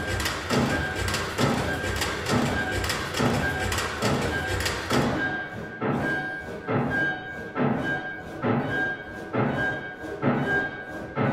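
Contemporary chamber music for double bass, cello, violin and piano over a regular mechanical thumping pulse a little faster than once a second, with a high ringing tone on each beat. A hiss in the high range drops out about five seconds in.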